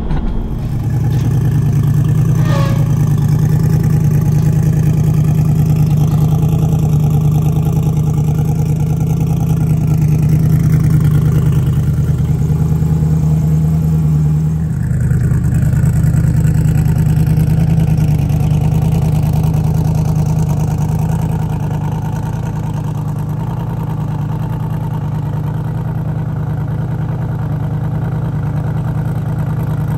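Twin-turbo Camaro's engine running steadily while the car rolls, with a brief falling whistle about two seconds in. About halfway through the sound changes to a car engine running at a steady idle.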